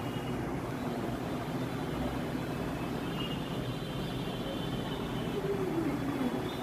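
Electric table fan running: a steady, low rumbling noise with no change.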